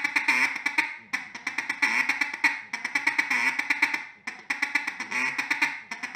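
Mallard hen feed chuckle blown on a duck call: a fast run of ticking notes with short stutter quacks mixed in. It comes in long phrases broken by two brief pauses, about a second in and about four seconds in.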